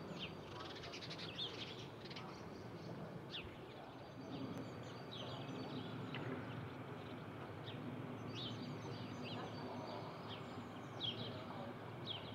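Small birds chirping repeatedly in quick, short falling calls over a steady low rumble, which is plausibly the distant jet noise of an Airbus A350-900 passing high overhead.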